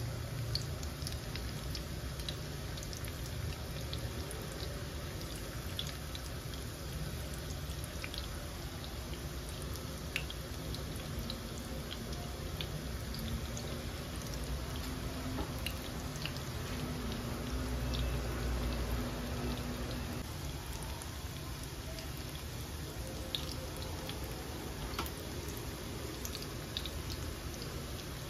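Sweet potato leaf and tofu fritters deep-frying in hot oil in a pan: a steady sizzle with many small pops and crackles scattered through it.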